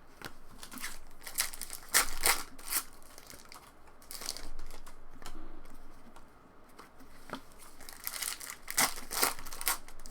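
2021 Donruss Optic Baseball pack wrappers being torn open and crinkled by hand, a run of short irregular crackles.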